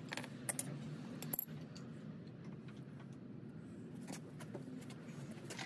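Small metal plumbing fittings and a hand tool clinking and clicking as they are handled, with one sharp metallic clink about a second in.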